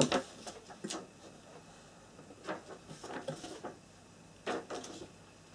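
Paper pages of an instruction booklet being handled and turned: a few short, soft rustles and flicks with quiet gaps between.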